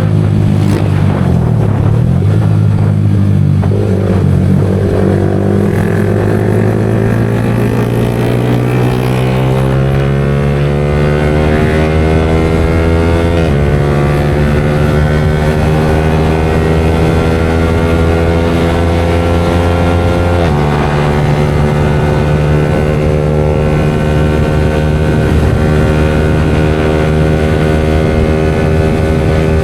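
Yamaha R15 V4 motorcycle engine breathing through an aftermarket Leo Vince exhaust, pulling under steady acceleration while riding. The engine note climbs slowly, then drops sharply twice, about 13 seconds in and again about 20 seconds in, as the rider shifts up a gear each time, and then climbs again.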